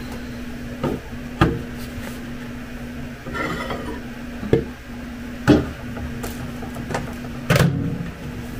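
Off-camera kitchen handling: about five separate knocks and clatters as a microwave door is worked and a cup of warmed milk is taken out. A steady low hum runs under them.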